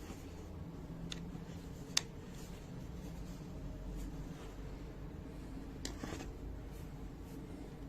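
Low steady hum with a few sharp clicks and small handling noises: one about a second in, a louder one at two seconds, and a short cluster near six seconds.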